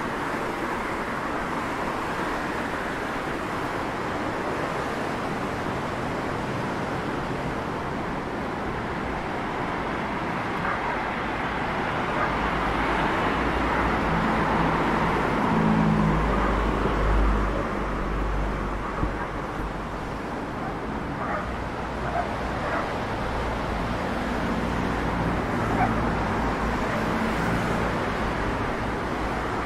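Road traffic passing along a street: a steady wash of car noise, with one vehicle's low engine drone growing louder about halfway through and then fading.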